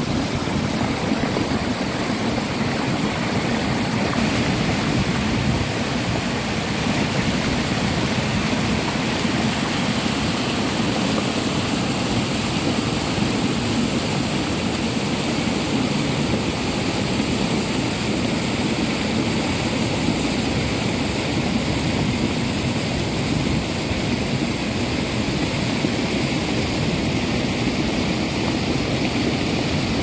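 Fast mountain stream rushing and splashing over rocks and boulders, a steady continuous sound of white water.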